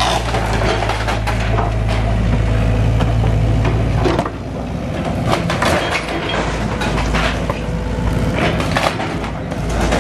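Wooden roof timbers and rubble cracking, splintering and clattering as a SANY mini excavator tears down the structure, over the steady drone of the excavator's diesel engine. The engine drone drops away about four seconds in, leaving irregular cracks and knocks of wood.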